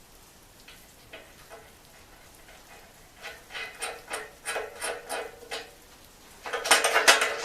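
Steel sawmill parts and bolts clinking and rattling as they are handled during assembly. A run of light ringing clinks starts about three seconds in, and a louder, denser metal clatter comes near the end.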